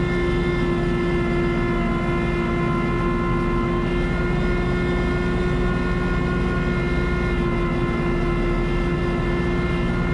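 Kubota LX2610 compact tractor's three-cylinder diesel engine running at a steady working speed, driving the front snowblower and the rear sand spreader off its PTOs, with a steady whine over the engine's rumble.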